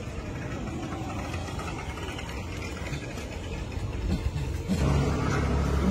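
A motor vehicle engine idling, a low steady hum that becomes louder about five seconds in.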